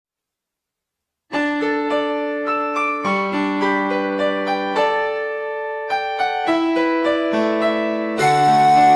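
Piano-voiced keyboard playing a slow ballad intro, ringing notes and chords starting a little over a second in; fuller accompaniment with low bass notes comes in near the end.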